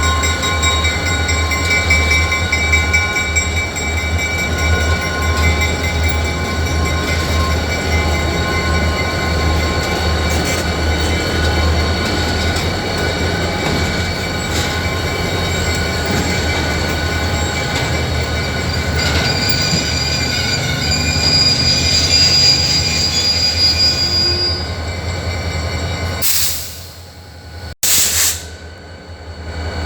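Freight train rolling past, its wheels giving a steady high-pitched squeal of several held tones over a low rumble. About 26 seconds in the sound drops away sharply, with one brief loud burst just before the end.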